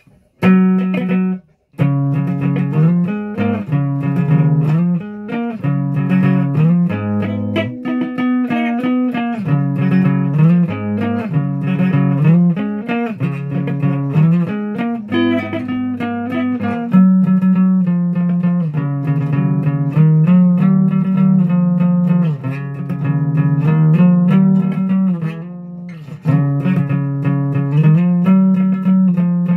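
Music with plucked guitar notes over a bass line. It starts about half a second in, breaks off briefly, then plays on.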